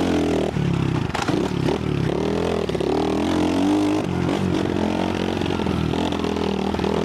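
Trailmaster 125 pit bike's 125cc single-cylinder four-stroke engine being ridden on a trail, its revs rising and falling repeatedly with the throttle.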